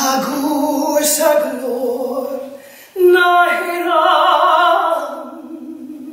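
A woman singing in a full-voiced musical-theatre style: two phrases with long held notes, the second fading away near the end.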